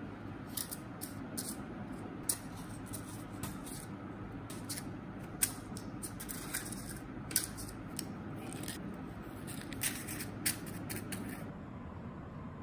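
Paper cupcake liners being dropped and pressed into the cups of a metal muffin tin: an irregular string of light paper rustles and crisp ticks, a dozen or more, stopping shortly before the end.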